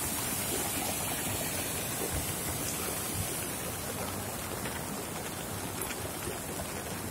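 Heavy rain falling on an umbrella overhead, mixed with rushing floodwater: a steady, even noise with a few faint drop ticks.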